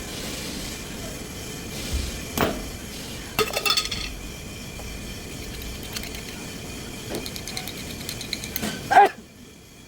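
Metal objects clinking and clanking over steady background noise: a single clink, then a quick cluster of ringing clinks, and a louder clank near the end.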